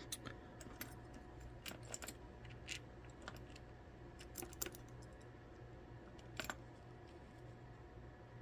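Scattered light clicks and taps of small lock parts and tools being handled on a work surface, the loudest a quick double click about six and a half seconds in, over a faint steady hum.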